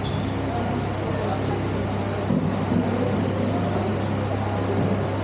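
Steady low hum with a noisy background wash and faint, indistinct voices.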